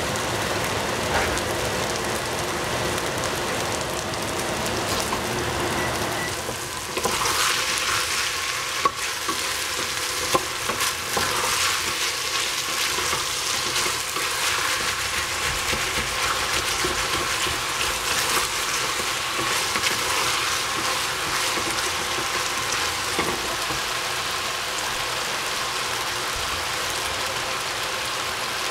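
Potato and celery strips sizzling and crackling in a stainless steel pot. From about seven seconds in the sizzle grows brighter, with a few clicks and scrapes as the vegetables are stirred in the pot.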